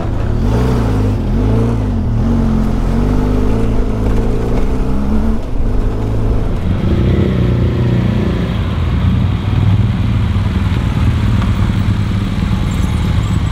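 Motorcycle engine running as it is ridden on a rough dirt road. The revs rise and fall over the first few seconds, then hold steadier.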